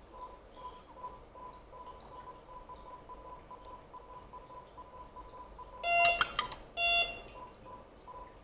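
Faint electronic beeping, about two and a half beeps a second, typical of a hospital monitor's pulse tone. About six seconds in, two loud, short electronic beeps with clicks.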